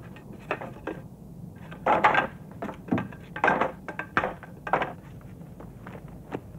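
Wooden boards knocking and scraping as they are handled: about ten irregular clattering knocks and short scrapes, the loudest about two seconds in and again about three and a half seconds in.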